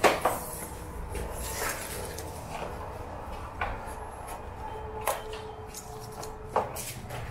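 Sharp clacks and knocks of a painted plastic add-on side skirt being handled and fitted, about five in all, the loudest right at the start and the others spread a second or more apart.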